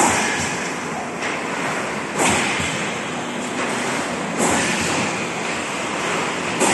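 Plastic cup-lid forming and packing machine running, a steady mechanical noise with a sharp, louder burst about every two seconds as it works through its cycle.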